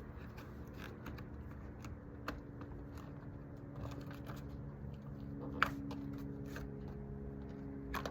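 Scattered light clicks and taps of hands working a trunk spoiler loose from its adhesive tape, over a steady low hum, with one sharper click a little past halfway.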